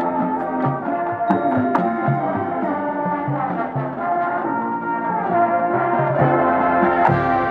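High school marching band playing, led by its brass section: held brass chords with a melody line on top and low brass notes moving underneath.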